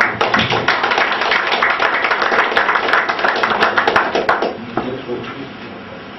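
Applause from a small group of people, many hands clapping; it starts suddenly and dies away after about four and a half seconds.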